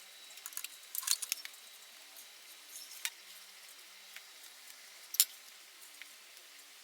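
Small sharp clicks and taps of hand tools on a TV circuit board while a replacement capacitor is fitted: a quick cluster about a second in and single clicks near three and five seconds, over a faint hiss.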